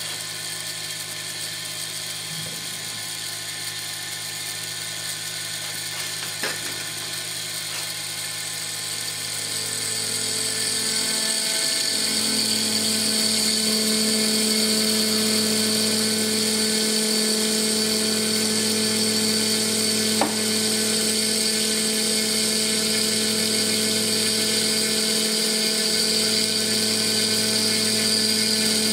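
CNC mill spindle running with a steady whine as a ball end mill cuts a clearance pass into Stone Hopea Burl wood ring stock. It grows louder, with a new steady tone joining, about ten to twelve seconds in, as the cut deepens into the wood.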